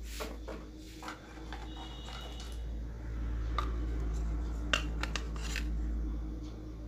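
Small hard objects clicking and clattering as they are handled on a workbench, with a cluster of sharper clicks about two-thirds of the way in, over a steady low hum.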